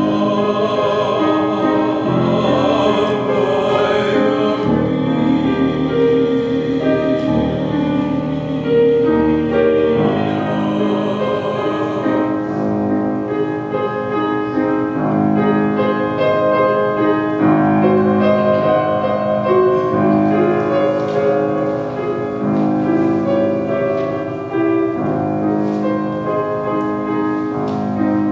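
Choir singing a slow sacred piece with church organ accompaniment, sustained chords and low held notes under the voices.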